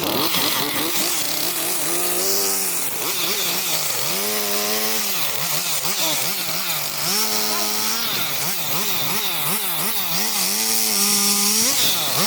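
Gas chainsaw cutting firewood into short stove lengths. The engine revs up, holds high for about a second while it cuts, then drops back, four or five times over.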